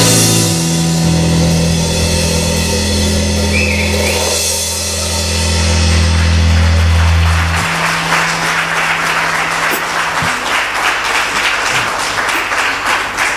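A rock band's final chord rings out with a held bass note and a cymbal wash, then stops about seven and a half seconds in. Audience applause follows.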